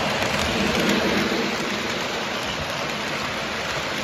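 Model trains running on a layout: the steady noise of metal wheels rolling on the rails as the cars pass close by.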